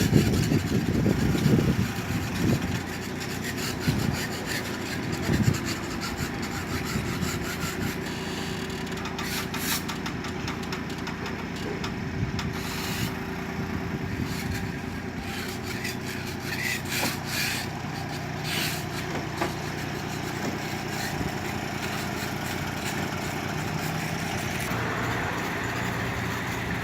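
Small excavator's engine running steadily, with scraping and rubbing in the first few seconds and scattered knocks and clicks in the middle, as the machine works at lifting concrete drain-channel covers.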